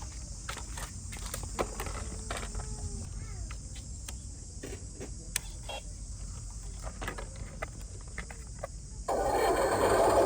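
Small electric motor of a toy RC truck whining in short rises and falls in pitch, with many light plastic clicks and rattles. About nine seconds in, a much louder steady sound cuts in suddenly.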